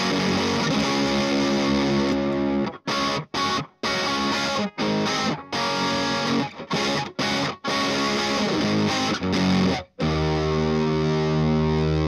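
Electric guitar played through an MXR Fet Driver MOSFET overdrive pedal, giving a distorted tone. It starts with full chords, then plays short choppy chords with brief silences between them, and about ten seconds in lets one chord ring out steadily. The pedal's working sound shows that the repair succeeded.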